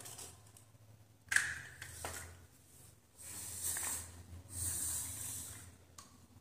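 Handling noise from toy RC vehicles being picked up and moved by hand: a sharp knock a little over a second in, then two hissing rustles of about a second each, over a low steady hum.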